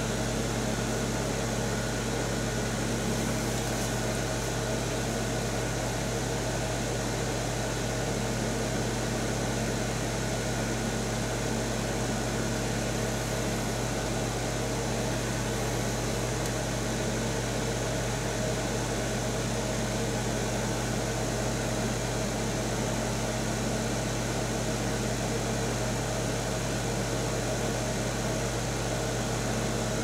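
1975 Amana Radarange RR-6W microwave oven running on defrost with its magnetron cycled off: a steady electrical hum and fan noise.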